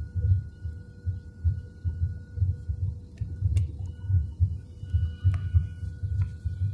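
Low, irregular thumping a few times a second over a faint steady hum, heard inside an airliner cabin.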